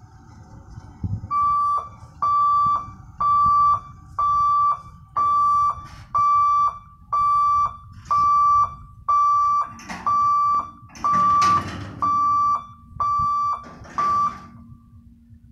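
Level-crossing gate warning hooter beeping while the boom barriers come down: fourteen steady, high-pitched beeps, about one a second, each about half a second long, that stop shortly before the end. It is the warning that the crossing is closing for an approaching train.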